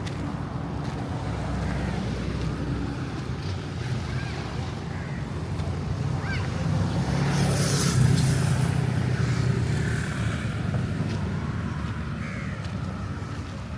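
An engine running steadily, growing louder about halfway through with a brief rushing hiss, then easing off again.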